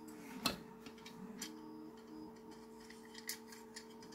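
Hard plastic parts of a 3D-printed pen holder clicking and knocking as the rail arms are slid out of the base, with a sharp click about half a second in, another near the end and a few lighter ticks between, over a faint steady hum.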